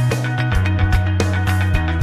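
Background rock music with guitar over a steady bass line and drumbeat.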